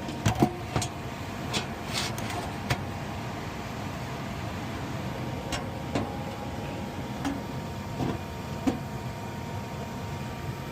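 Furnace running on a call for heat with a steady hum, while the system is tested for a low-voltage short that keeps blowing its 3-amp fuse. Sharp clicks and knocks come several times in the first three seconds, then a few more later.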